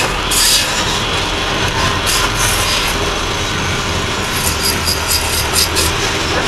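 Belt-driven wood lathe running steadily with a low hum while a hand-held chisel cuts a spinning wooden charpai leg, giving bursts of hissing cutting noise. There is a short cut near the start, another about two seconds in, and a quick run of short strokes in the last couple of seconds.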